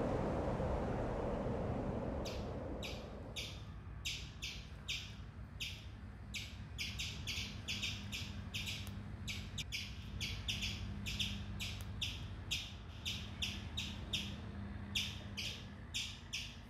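A small bird chirping: short, sharp high chirps, several a second, in irregular runs that begin about two seconds in, over a faint steady low hum. A rushing noise fades out over the first three seconds.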